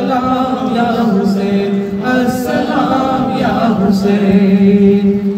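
Man singing a manqabat for Imam Hussain unaccompanied into a microphone, drawing out long held notes that slide and bend in pitch.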